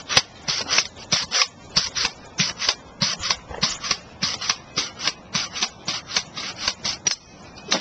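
Pogo stick bouncing in place on grass, its spring making rasping squeaks in a steady rhythm, about three a second.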